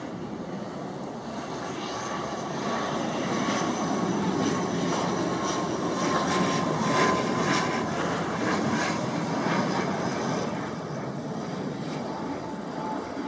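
AirAstra ATR 72-600's two turboprop engines and propellers droning as the airliner passes low on landing approach. A steady whine slowly drops in pitch as it goes by. The sound builds to its loudest about halfway through, then eases off.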